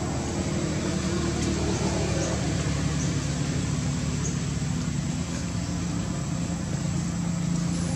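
A steady low engine hum with a few faint high ticks.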